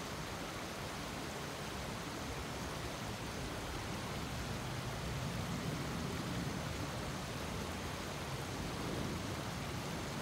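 Shallow river water running over a rocky riffle: a steady, even rush of water.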